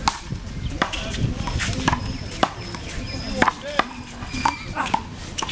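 A handball rally: a string of sharp smacks, as bare hands strike the small rubber ball and the ball hits the wall and the court, at uneven intervals of about half a second to a second.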